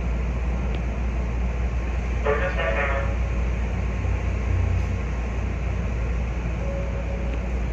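Hankyu 1300 series electric train standing at a station, its onboard equipment giving a steady low hum. A short horn-like tone sounds once, about two seconds in, for under a second.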